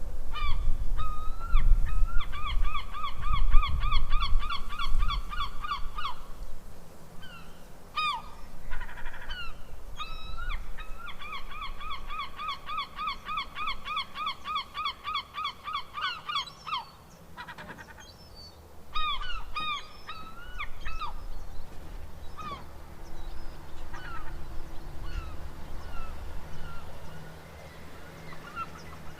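Seagull calling: two long runs of rapid, repeated yelping notes, the gull's laughing long call, with single falling cries between and after them. A low rumble runs underneath, strongest in the first few seconds.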